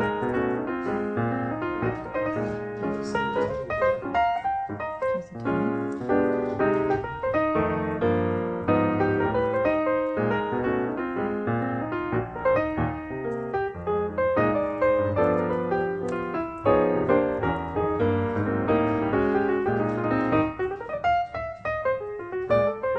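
Background piano music: a busy melody of many short notes over chords.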